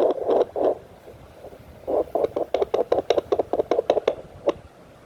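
JPD-100E handheld fetal doppler's speaker reproducing quick finger taps on its ultrasound probe as short thumps. There is a short run at the start, then a pause of about a second, then a longer run of about five thumps a second, and a single thump near the end.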